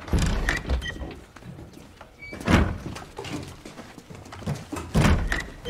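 Heavy wooden thuds and knocks of a door and booted feet in a small bare room. The loudest come about two and a half seconds in and again about five seconds in.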